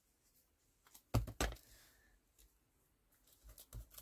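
Light knocks and taps on a desk as paper pieces are handled and pressed onto a junk-journal page: two sharp knocks close together about a second in, then a few fainter taps near the end.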